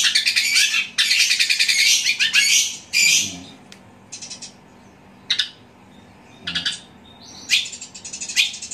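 Long-tailed shrike singing a fast, loud, harsh chatter that mimics the squabbling calls of tree sparrows. It keeps going for about three seconds, then breaks into short separate bursts and picks up again near the end.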